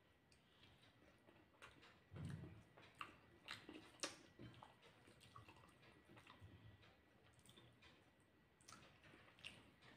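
Faint sounds of someone eating rice by hand: soft chewing and mouth smacks, with scattered small clicks.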